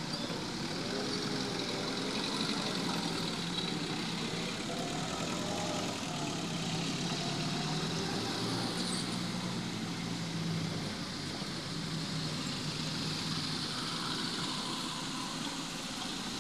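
Road traffic: minibuses and cars driving past, their engines running with a steady low hum over the noise of the traffic.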